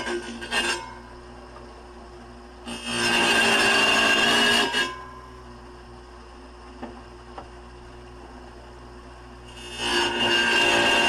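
Electric wet tile saw cutting ceramic tile: a loud, steady high-pitched grinding while the blade is pressed into the tile. It comes in three stretches: briefly at the start, again about 3 to 5 seconds in, and from about 10 seconds on. Between them the saw runs much more quietly.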